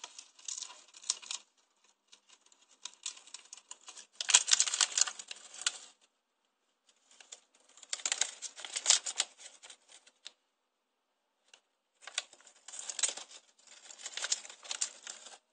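Empty paper bag crinkling and rustling as a pet rat works at it, in four bouts of a few seconds each with brief pauses between, loudest about four seconds in.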